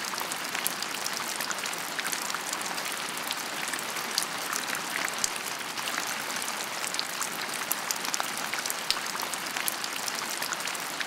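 Steady rain, an even hiss dotted with many small drop ticks.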